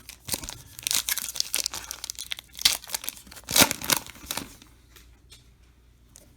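A wrapper on a pack of trading cards being torn open and crinkled by hand, a run of rustles with two loudest rips near the middle, dying down near the end.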